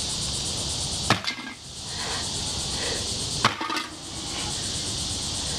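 Two sledgehammer blows on a metal tea kettle being beaten flat, about two and a half seconds apart, each a sharp strike with a short ring.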